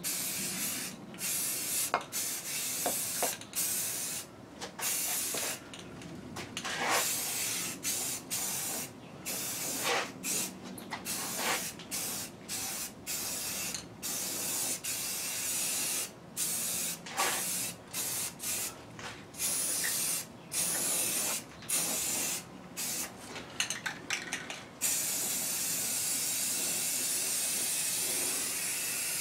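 Aerosol spray paint can hissing in many short bursts with brief gaps between them, then held down in one long continuous spray for the last few seconds.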